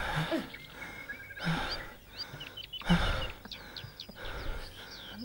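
A man weeping in gasping sobs, about one every second and a half, while small birds chirp in the middle.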